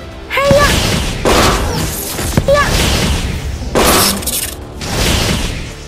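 Cartoon battle sound effects: about five crashing, shattering impacts roughly a second apart, with short cries between them and music underneath.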